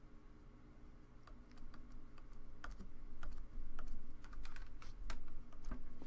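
Stylus tapping and clicking on a tablet screen during handwriting: a dozen or so light, irregular clicks starting about a second in, over a faint steady hum.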